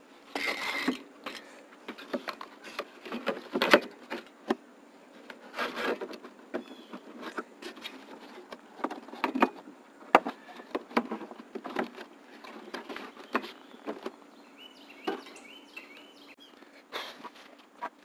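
Scattered light knocks, taps and rubbing from an RV rooftop air conditioner's drain pan and sheet-metal cover being handled and fitted back into the unit.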